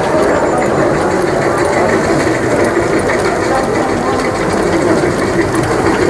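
Steady mechanical running noise, like small motors or engines working, with faint irregular ticking over it.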